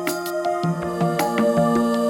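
Soft instrumental background music: sustained notes with a gentle, evenly paced plucked melody.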